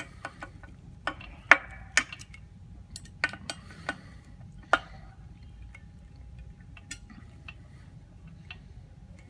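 Sharp clicks and clinks of the TV stand's parts as the top piece is seated on its pin and its set screw tightened. There are a dozen or so irregular knocks in the first five seconds, then only a few.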